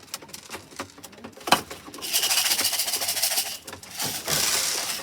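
Clicks and a sharp knock, then two stretches of loud rustling, as young pigeons are handled in the loft.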